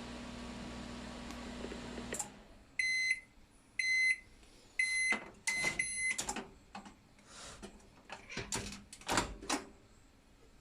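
Microwave oven, fitted with a 0.85 µF high-voltage capacitor, running with a steady hum that cuts off with a click about two seconds in at the end of the heating cycle. Its end-of-cycle beeper then sounds three times about a second apart, followed by a couple of quicker beeps, and then a series of knocks and clatters from the door and cup being handled.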